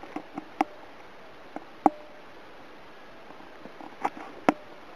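A handful of short, sharp knocks and clicks, about five of them spread over a few seconds, over a quiet background.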